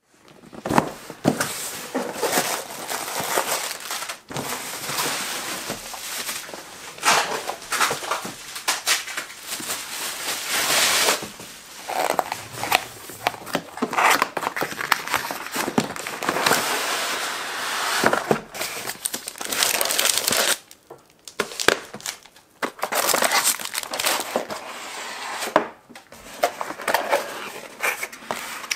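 Cardboard packaging being unboxed by hand: a box sliding out of its sleeve, flaps and lids rubbed and knocked, with plastic bags crinkling.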